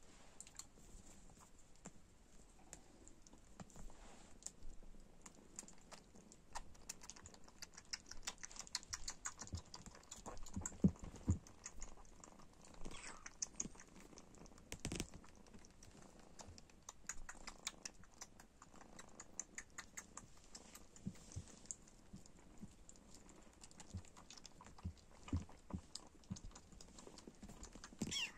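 Bengal kitten suckling at a feeding-bottle nipple: a fast, irregular run of small clicks and smacks from its mouth, with a couple of louder knocks near the middle.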